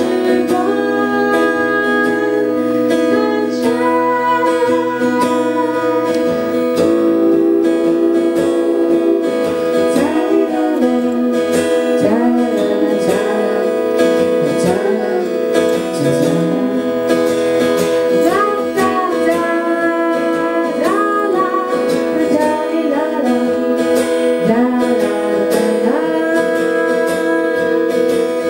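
Acoustic guitar strummed and picked, accompanying a woman and a man singing a slow song in a live duet.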